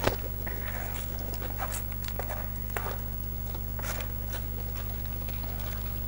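A few sharp clicks of tableware right at the start, then scattered light taps and handling noises of cutlery and dishes at a meal, over a steady low electrical hum.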